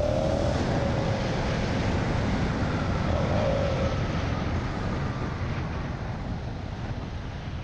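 Yamaha MT-07 parallel-twin engine running as the motorcycle rides at city speed, under wind and road noise on the camera's microphone. It gets a little quieter near the end.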